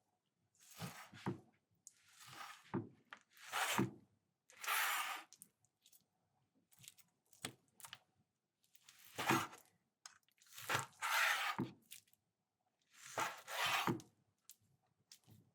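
Knife cutting through meat: a series of slicing, tearing strokes, each about half a second to a second long, coming in uneven groups with short silent pauses between.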